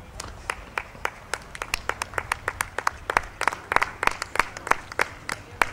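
Scattered applause from a small group of spectators: sharp, separate hand claps at an uneven rhythm, cheering a horse and rider at the end of a show-jumping round.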